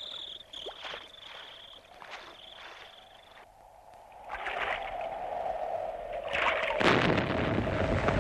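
Film soundtrack: first a high tone that comes and goes in short breaks. Then, about four seconds in, the wash of a wave running over a pebble beach. Near the end comes a loud, deep rumble.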